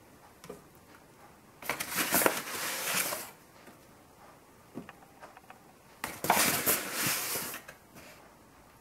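Paper flour bag rustling twice, each time for about a second and a half, as a spoon scoops all-purpose flour out of it, with a few small clicks of the spoon.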